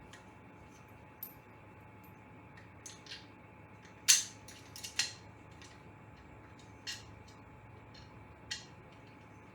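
Sporadic light clicks and clinks of small hard parts being handled during assembly, about eight in all, the loudest about four seconds in and two more close together about a second later.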